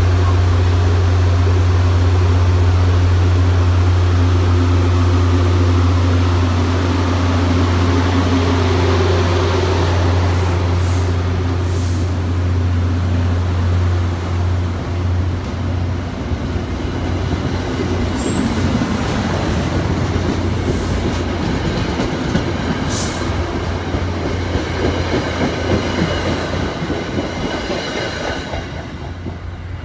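MBTA commuter coaches rolling past close by as the train pulls out, steel wheels rumbling on the rails with a few sharp clicks. A steady low drone from the diesel locomotive fades about halfway through, and the sound tails off near the end as the last car goes by.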